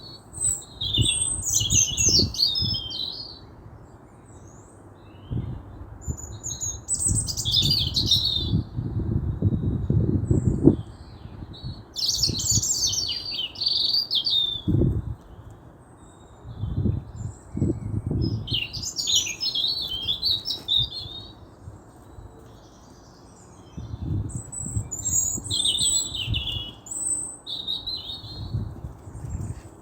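A songbird singing short phrases of quick high notes, one phrase every five or six seconds, over irregular low rumbling.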